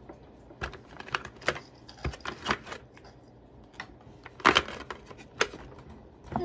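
Small plastic lip balm tubes clicking and clattering as they are handled and set down among the others: about a dozen light, irregular knocks, the loudest about four and a half seconds in.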